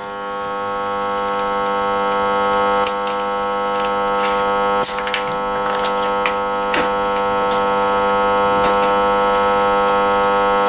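A steady, even electrical hum with many overtones that swells over the first couple of seconds and then holds, with a few light clicks of a hand tool working on the engine's cylinder head.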